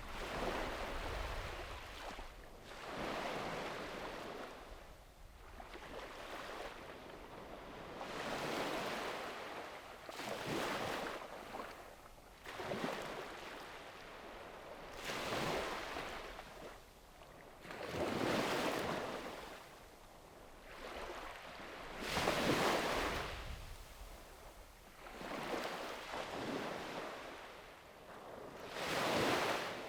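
Surf on a sandy beach: small waves breaking and washing up the shore one after another, a surge of surf every two to three seconds.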